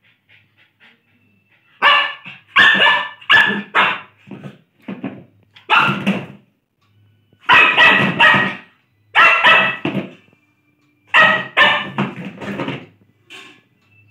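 Lhasa Apso barking: repeated sharp barks in runs of two to four, starting about two seconds in, with pauses of a second or so between the runs.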